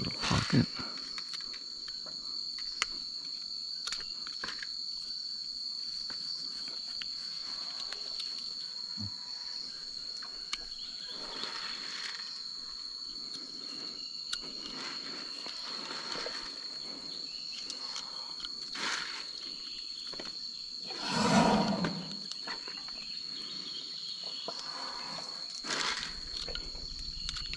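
Hoof knife paring and cleaning an elephant's foot: faint scrapes and clicks over a steady, high-pitched insect drone, with one louder, noisy burst about three-quarters of the way through.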